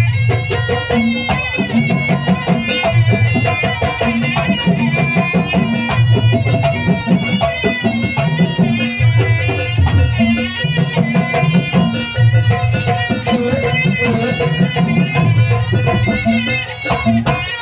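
Live traditional East Javanese dance music: drums beat a steady repeating pattern under a wavering high melody line.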